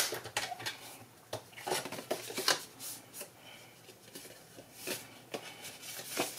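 Red cardstock being handled at a paper trimmer: a sharp click right at the start, then scattered rustles and light taps as the freshly scored card is lifted off and folded along the score.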